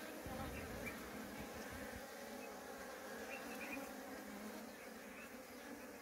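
Honeybee colony humming inside its wooden hive box: a faint, steady buzz.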